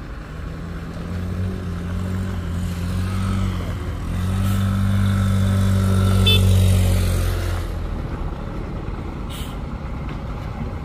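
Diesel engine of a Mitsubishi Fuso tandem-axle cargo truck pulling up a steep grade, a low steady note that dips briefly about four seconds in, then grows louder under load before easing off about two-thirds of the way through. A short hiss comes near the end.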